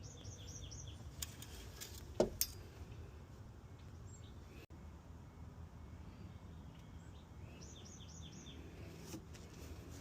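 A small songbird chirping outdoors: two short runs of about five quick, high chirps, one at the start and one near the end, over a faint low hum. A single light knock sounds about two seconds in.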